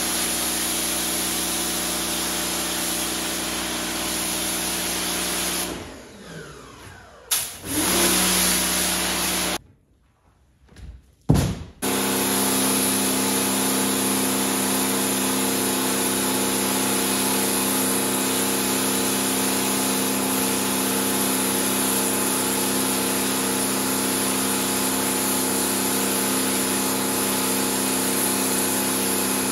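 Pressure washer running steadily, its pump motor humming under the hiss of the water jet on the soaked rug. Twice, about six and ten seconds in, the spray stops and the motor winds down with a falling pitch before starting up again.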